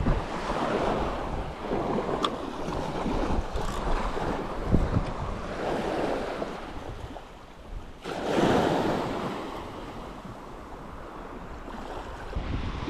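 Surf breaking and washing up a sandy beach in repeated surges, with wind gusting on the microphone.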